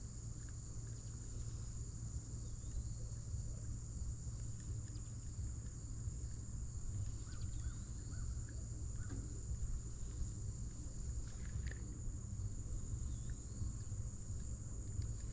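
Steady, high-pitched chorus of insects, even and unbroken, over a low steady rumble, with a few faint chirps now and then.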